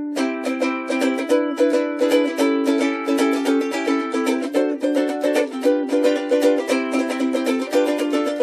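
Mainland all-solid mango wood soprano ukulele played as a tone sample: a steady run of plucked and strummed notes and chords with quick, even strokes.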